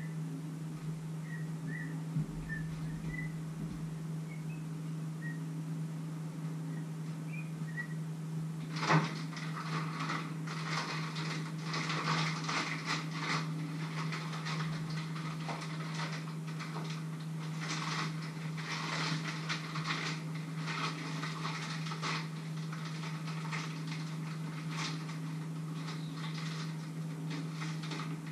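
Crinkling and rustling of a wrapper being handled, starting with a sharp click about nine seconds in, over a steady low hum. Before it come a few faint short high whistles.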